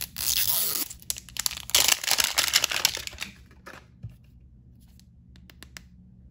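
Plastic wrapping on an L.O.L. Surprise Surprise Swap ball being torn and crinkled by hand, in two loud bursts of crackling, then a few soft clicks as the ball is turned over.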